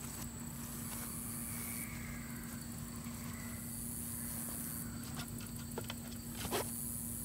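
Insects buzzing high-pitched in stretches that start and stop every second or two, over a steady low hum and light wind rumble, with a couple of light knocks near the end.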